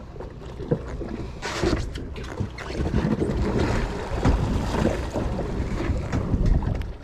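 Wind on the microphone over sea water, a steady low rumble with a few scattered knocks and rustles.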